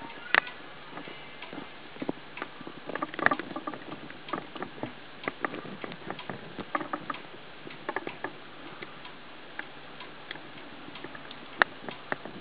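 Irregular light clicks and taps, some single and some in quick clusters, with a sharper click near the end, over a steady hiss.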